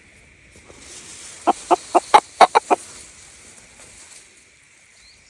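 Chicken clucking: a quick run of seven loud clucks, about five a second, starting about a second and a half in.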